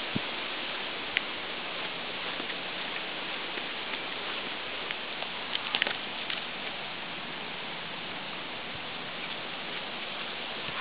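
Steady even hiss of outdoor background noise with a few light clicks, one about a second in and a small cluster around six seconds in.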